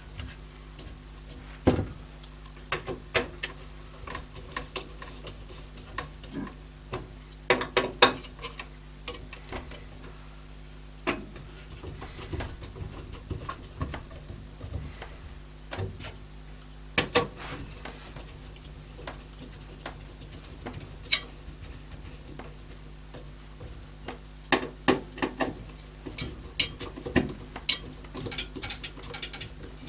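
Irregular small clicks and taps of a screwdriver and screws as a motherboard is screwed into a PC case, some in quick clusters, over a steady low hum.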